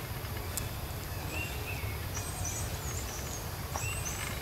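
Outdoor ambience: a steady low rumble under repeated short, high-pitched chirping calls of birds.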